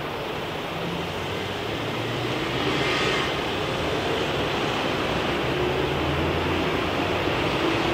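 Jet airliner engine noise, a steady rushing sound that grows gradually louder, with a brief brighter, hissier stretch about three seconds in.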